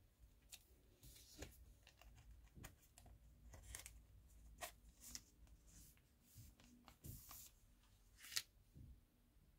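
Faint crinkling and rustling of a silver foil packet and glossy photo cards being handled, with scattered short crackles and one sharper snap near the end.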